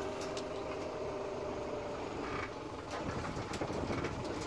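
Case IH JX110 tractor's diesel engine running steadily while it works its front loader.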